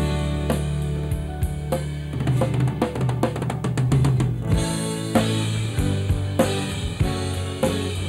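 A live band plays an instrumental passage: a drum kit with bass drum and snare keeps a steady beat under sustained low bass notes and keyboard chords. The arrangement shifts about halfway through.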